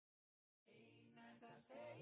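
Silence, then about two-thirds of a second in, voices begin singing a cappella, soft at first and growing louder.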